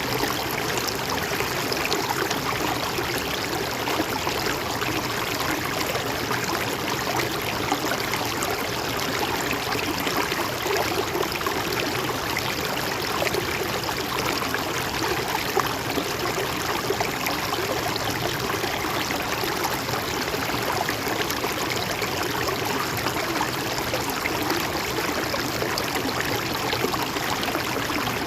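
River water flowing steadily, a continuous gurgling rush with no breaks or changes.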